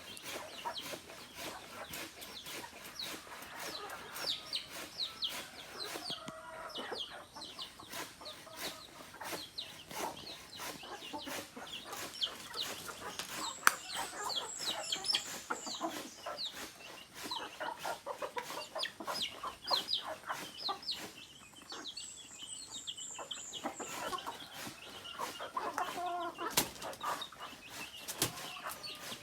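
Native chickens clucking, with many short high chirps and a scatter of sharp clicks throughout, and lower pitched calls a few seconds in and again near the end.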